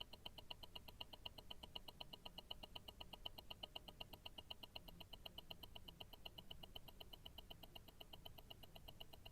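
Tourbillon watch movement ticking, heard through a stethoscope: a faint, fast, perfectly even run of escapement ticks, several a second.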